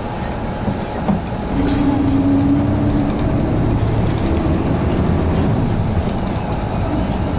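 Steady low rumble of a moving vehicle, with a held tone that comes and goes and some faint clicking.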